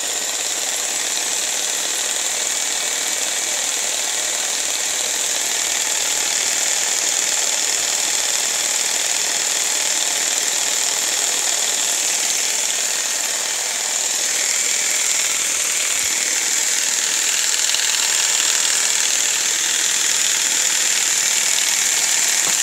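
Jigsaw running steadily, used as a homemade paint shaker with a pot of old hobby paint held where the blade goes, making a continuous high, buzzing rattle as it shakes the separated paint back together.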